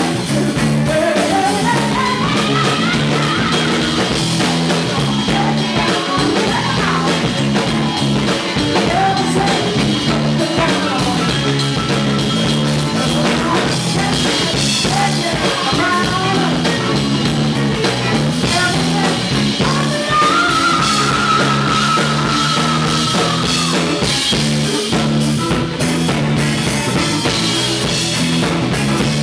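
Live rock band playing a steady groove on drum kit, electric guitar and bass guitar, with a woman singing lead through a microphone; a long high note is held about two-thirds of the way through.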